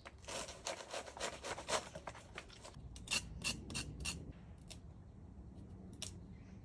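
A knife trimming and scraping young radish greens by hand: a quick run of short crisp cutting strokes for about four seconds, then a few scattered clicks.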